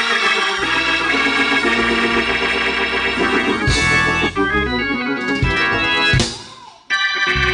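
Organ playing sustained chords that shift every second or so, with a few short hits around the middle. The sound falls away briefly a little after six seconds in, and the chords return just before the end.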